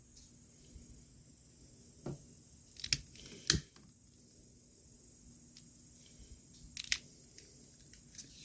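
A few sharp clicks and snips from small hand tools being handled during close wiring work, in two pairs: around three seconds in and again near seven seconds.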